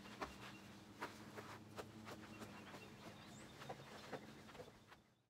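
Faint footsteps of a child hopping and dancing on a porch, soft irregular taps about every half second over a low steady hum, cutting off about five seconds in.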